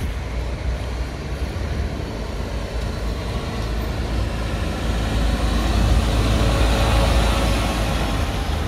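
Mercedes-Benz Actros articulated truck pulling a Krone curtainsider semi-trailer, its diesel engine rumbling low with tyre noise growing louder as it rounds the bend and passes close by, loudest about six to seven seconds in.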